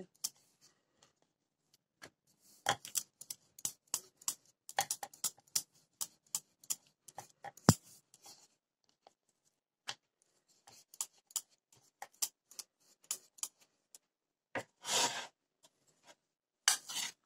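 Wooden rolling pin rolling out dough on a round wooden board, with irregular light clicks and knocks of wood on wood. Near the end come two short scraping rustles.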